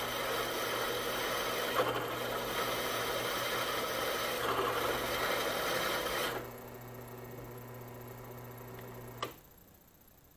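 WEN benchtop drill press running, its twist bit cutting into a steel bar lubricated with old motor oil, a steady motor hum under a grinding scrape. The scraping stops about six seconds in, leaving only the motor hum, which cuts off with a click about nine seconds in.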